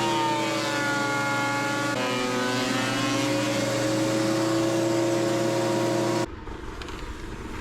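A power tool's electric motor running steadily, its pitch dipping and rising as it is loaded, then cut off abruptly about six seconds in, leaving a quieter low rumble.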